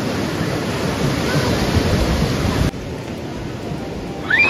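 Sea surf breaking and washing ashore, a steady rush of waves. The sound drops suddenly about two-thirds of the way through, and a high voice calls out briefly near the end.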